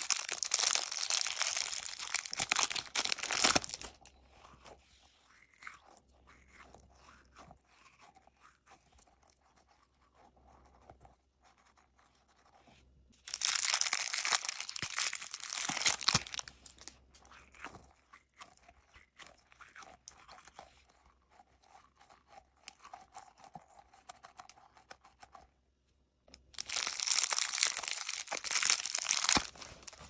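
Thin clear plastic wrapper crinkling and tearing as it is peeled off bead-filled squishy toys. It comes in three loud bouts of about three seconds each, some thirteen seconds apart, with faint rustling and handling between.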